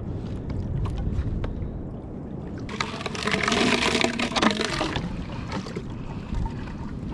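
Kayak on the water, with steady low rumble of water and wind. In the middle, from about three to five seconds in, there is a louder burst of hissing, splashing or rustling noise.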